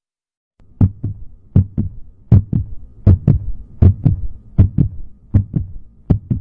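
Heartbeat sound effect: a steady lub-dub, two thumps close together repeating about every three quarters of a second. It starts about half a second in, after silence.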